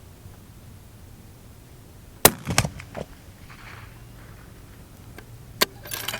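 A single loud, sharp rifle shot about two seconds in, followed by several clicks; a quicker cluster of metallic clicks comes near the end.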